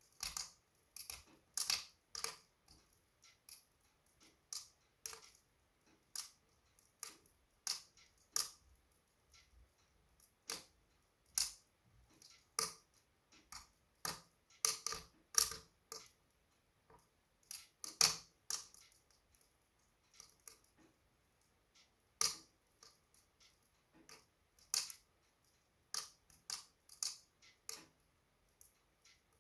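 Wood fire in a fireplace crackling: sharp, irregular snaps and pops, a few a second, with short quiet gaps between and no steady roar under them.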